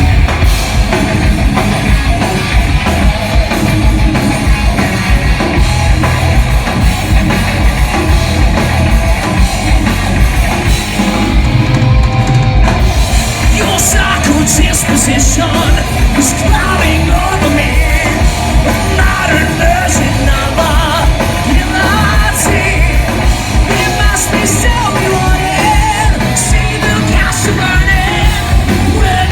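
Heavy metal band playing live at full volume: rapid pounding drums under yelled, sung vocals.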